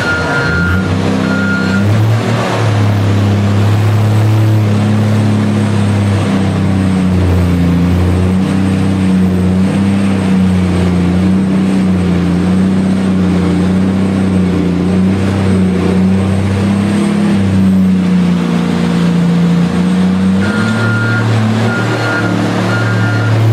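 Elphinstone R1600G underground loader's diesel engine running steadily while mucking. Its reversing alarm beeps evenly for the first two seconds and starts again near the end.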